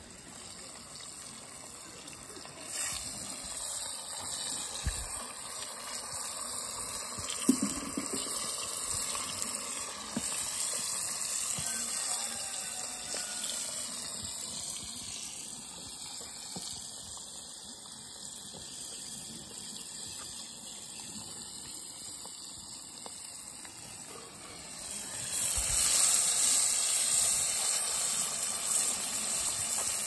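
Fish frying in a pot of hot oil over a wood fire: a steady sizzle that gets louder near the end. There is one short knock about seven seconds in.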